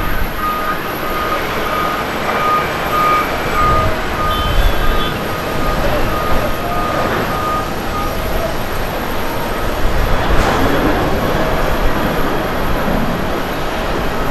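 Boeing 737-800's twin CFM56 turbofan engines at takeoff thrust, a steady loud jet roar through the takeoff roll, rotation and climb-out. A repeated high beep sounds through the first half and then fades.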